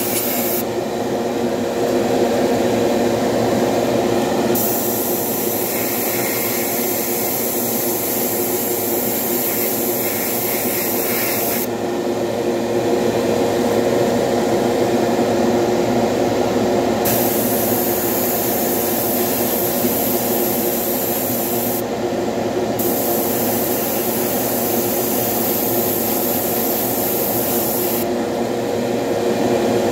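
Airbrush hissing as it sprays graphite paint, in bursts of several seconds that start and stop three or four times as the trigger is worked, over a steady motor hum.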